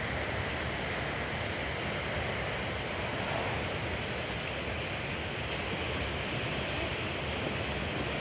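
Steady rushing noise of wind on the microphone.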